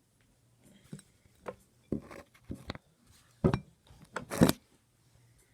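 A plastic conditioner bottle and a mixing bowl being handled: a string of small knocks and clinks, then two louder hissing squirts from the squeezed bottle about three and a half and four and a half seconds in.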